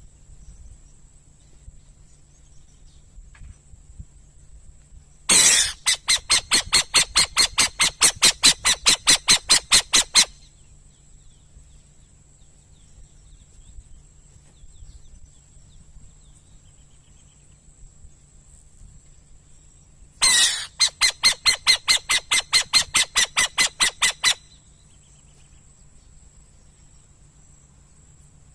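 Burrowing owl calling in two bouts of rapid chattering, each opening with a longer note and then running at about five sharp calls a second for four to five seconds.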